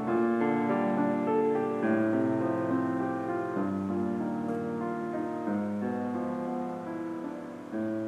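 Background music: a slow piano piece of held notes that change every second or two.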